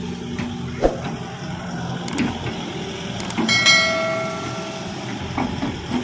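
Hydraulic excavator's diesel engine running, with several knocks and clanks and a short ringing metallic squeal about three and a half seconds in.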